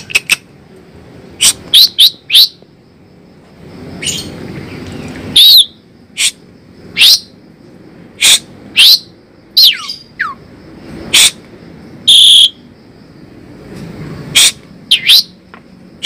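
Javan pied starling (jalak suren) calling: a string of loud, short whistled calls at uneven intervals, some sliding down in pitch, with a longer harsh, squawky note about twelve seconds in.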